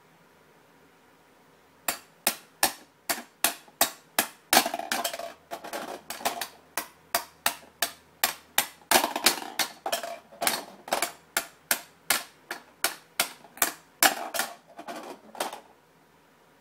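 Plastic toy hammer banging on a plastic pound-a-ball toy: a long run of sharp strikes, about two to three a second, starting about two seconds in and stopping shortly before the end.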